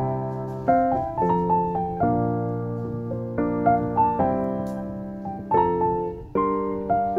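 Background piano music: notes and chords struck one after another and left to ring down.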